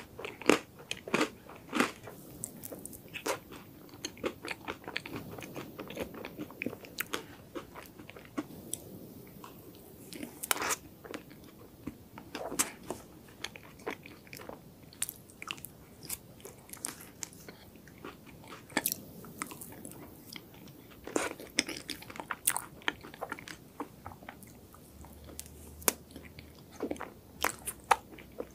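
Close-up crunching and chewing of a crunchy chocolate ice cream dessert, a steady run of sharp, irregular crackles as the bites are chewed.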